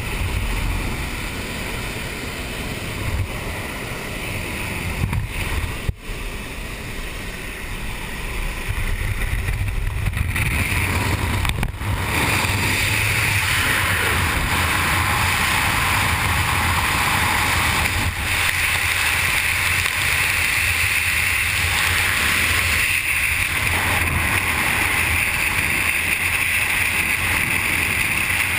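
Engine and airflow noise inside a Pilatus Porter jump plane's cabin. About ten seconds in it gives way to a louder, steady rush of wind over the microphone as the skydiver climbs out of the open door and into freefall.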